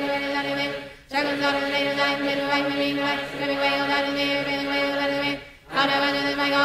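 A devotional decree being chanted rapidly on one steady, near-monotone pitch, with two short breaks, about one second in and near the end.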